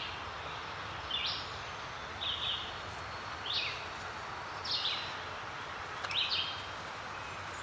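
A bird calling repeatedly, about six short high chirps roughly a second apart, over a steady outdoor background hiss.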